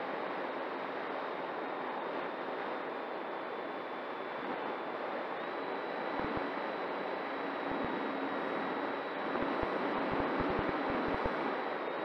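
Onboard audio of an E-flite Air Tractor 1.5m RC plane in flight: a steady rush of wind and propeller noise with the thin whine of its electric motor, which rises slightly in pitch about five and a half seconds in. From about halfway, wind buffets the microphone with low thumps.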